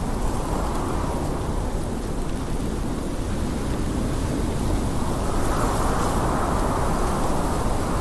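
Blizzard wind howling steadily, with a gust swelling about five seconds in and easing near the end.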